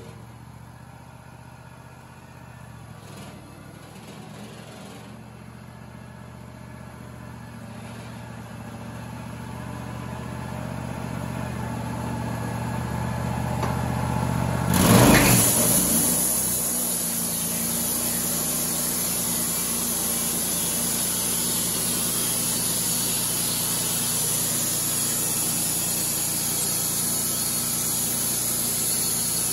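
Wood-Mizer LT35 band sawmill with its engine running steadily and growing louder as the saw head comes closer. About halfway through there is a brief loud surge as the band blade bites into the cedar cant, then a steady high hiss of the blade cutting through the wood over the engine.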